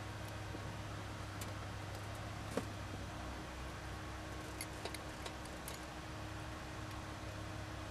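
Steady low hum with a few faint, sharp clicks and ticks scattered through it, a small cluster about five seconds in; the dragster's engine is not running.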